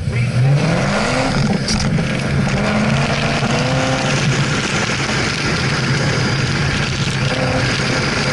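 Chevrolet Camaro ZL1's supercharged V8 accelerating hard, its pitch climbing in the first second and again a few seconds in, under heavy wind noise on the microphone.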